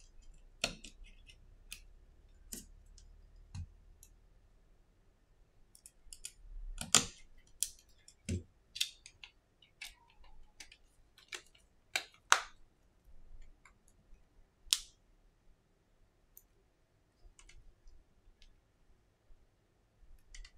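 Irregular small clicks and taps of an iPhone 6s being reassembled by hand with a precision screwdriver, with a few louder sharp clicks in the middle as the phone is pressed closed.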